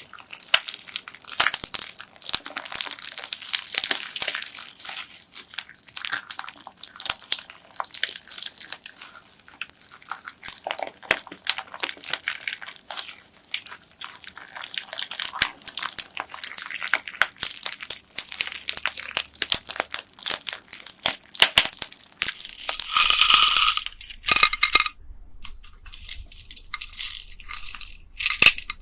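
Bead-filled slime being squished and worked, giving dense crunchy crackling and clicking from the beads and trapped air. There is one louder, longer crackling burst a little before the end, then sparser clicks.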